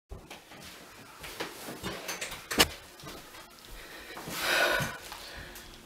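A person moving about in a small room: scattered light knocks and footfalls, with one sharper knock a little before halfway. About four and a half seconds in comes a broad rustle of clothing and movement as she comes close and sits down in front of the microphone.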